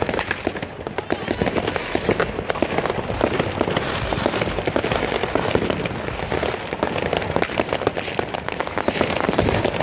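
Many fireworks going off at once: a dense, unbroken crackle of rapid bangs and pops, overlapping with no pause.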